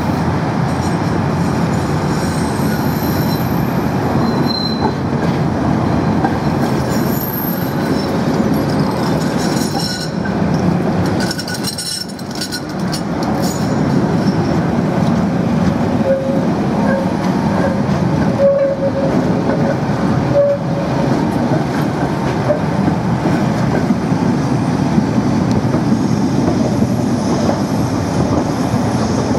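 Tatra trams running past on curved track, a continuous rumble of wheels on rails with high-pitched wheel squeal from the curve in the first several seconds. The sound eases briefly about halfway through as the next tram comes up, and a held squealing tone follows a few seconds later.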